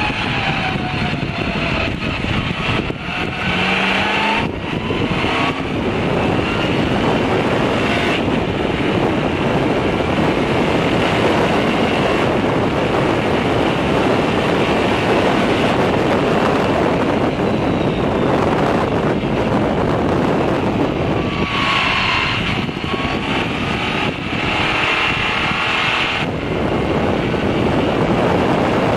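Racing car's engine heard from inside the cockpit at speed, over a dense, steady rush of noise. The engine pitch falls near the start and again about three-quarters of the way through, and rises again in between.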